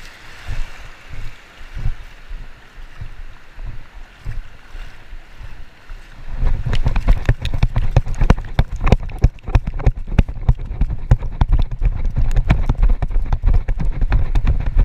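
Splashing and thudding steps while wading in shallow surf, then from about six seconds in a loud run of rapid thumping footfalls and knocks as the person runs up onto the wet sand, with wind buffeting the microphone.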